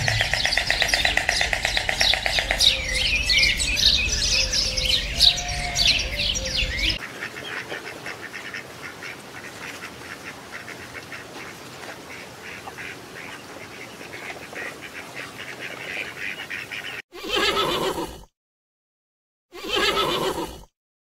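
A flock of birds calling and chattering loudly, with many quick chirps and squawks, thinning to quieter chirping after about seven seconds. Near the end it cuts to two separate pitched animal calls, about a second each, with silence between.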